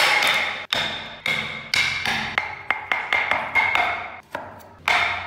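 Wood chisel being driven into a wooden block by repeated mallet blows, sharp knocks about twice a second, each with a brief ring.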